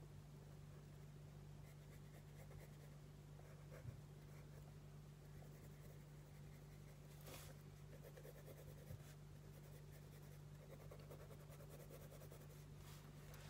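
Faint scratching of a pencil sketching on sketchbook paper, with a brief louder stroke about halfway through, over a steady low hum.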